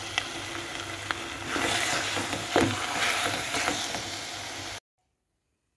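Food sizzling in a hot pan as it is stirred, with a few light clicks of the spoon. It grows louder for a while in the middle and then cuts off abruptly shortly before the end.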